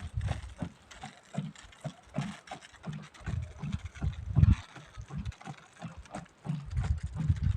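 An irregular series of dull low thumps, two or three a second, with faint clicks above them.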